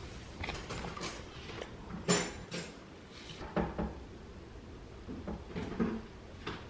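A few scattered light knocks and clicks of a plastic spoon and plastic bowl on a table as a toddler eats, the loudest about two seconds in.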